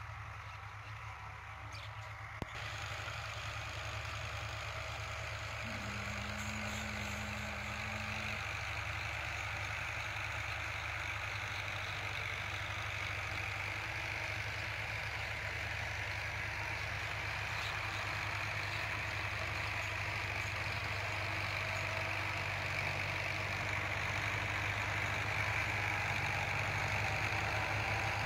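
Diesel farm tractor engine running steadily as it pulls a cultivator through ploughed soil, growing louder as it draws closer.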